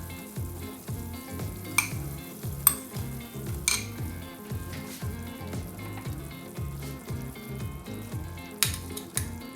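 Pot of vegetable-and-chicken stock bubbling on the stove, with about five sharp clinks of a utensil or vegetables against the pot as broccoli and baby corn go in. Soft background music with a low repeating beat runs underneath.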